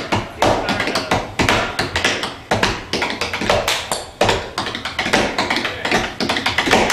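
Tap shoes striking a portable tap board in rapid, dense runs of taps, an unaccompanied rhythm with no band playing.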